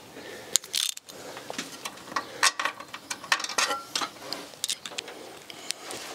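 Irregular metallic clinks and clicks of a socket wrench and a just-removed bolt being handled.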